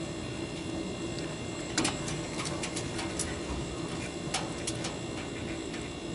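Small sharp clicks and taps as gloved hands fit crimped spade connectors onto the terminals of a water cooler's auto-fill solenoid valve, the loudest about two seconds in, over a steady low hum.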